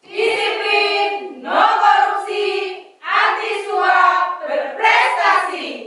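A group of women chanting a slogan in unison, four phrases one after another: "Disiplin! No korupsi! Anti suap! Berprestasi!"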